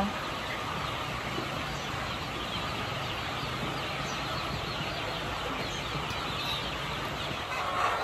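A flock of chickens, many calling at once in a steady, dense chatter.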